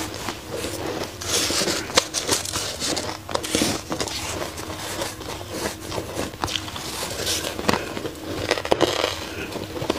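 Close-up crunching and chewing of dry shaved ice, a dense run of irregular sharp crackles and crunches. A plastic spoon scrapes and digs through the ice in a metal bowl partway through.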